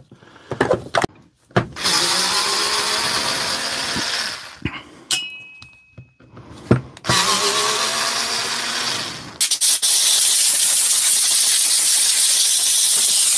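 Hilti SID 4-A22 cordless impact driver being test-run twice after its chuck repair, each run a motor whine of about three seconds, with a few clicks before them. From about two-thirds of the way through, a steady loud hiss takes over.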